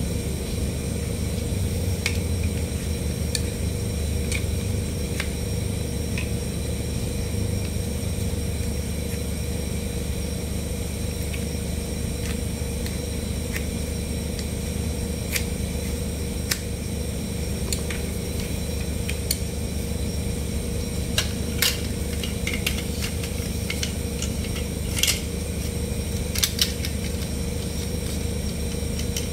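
Hard plastic toy trucks being handled and moved about: scattered light clicks and knocks of plastic parts, a few sharper ones in the second half, over a steady background hum.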